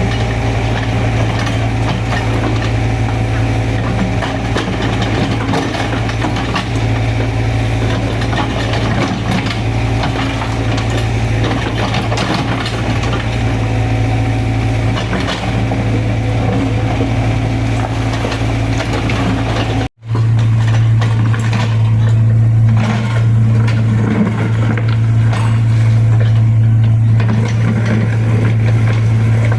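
Excavator's diesel engine running steadily with some clatter. The sound drops out for an instant about twenty seconds in, then carries on slightly louder.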